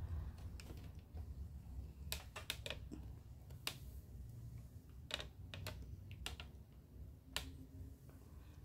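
Scattered light clicks and taps, about ten of them at uneven intervals, from small objects being handled, over a low steady hum.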